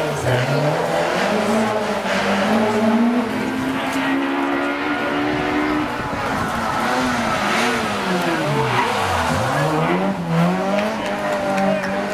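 Rally car engine revving hard as the car comes down the stage, its note climbing for several seconds. About nine seconds in the note drops steeply as the car brakes and changes down for a hairpin, then climbs again as it accelerates through the turn.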